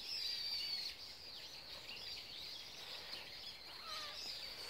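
Small birds chirping and twittering continuously in the background, a busy mix of short, high-pitched calls.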